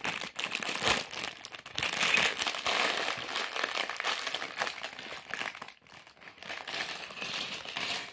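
Thin clear plastic bag of Lego pieces crinkling and crackling as hands pull it open and shake it, with the small plastic bricks inside clicking against each other. There is a short pause about six seconds in.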